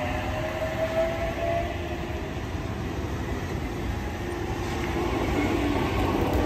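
Sydney Trains Waratah double-deck electric train moving through the platform. Its traction motors whine with a slowly rising pitch that fades out after about a second and a half, over a steady rumble of wheels on rail.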